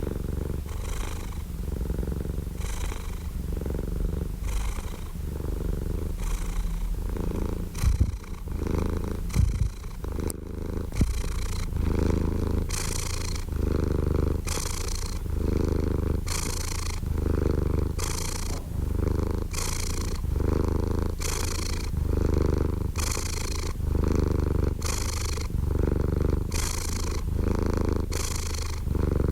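Domestic cat purring close up, a steady low rumble that swells and eases with each breath about once a second. A few brief knocks come around the middle.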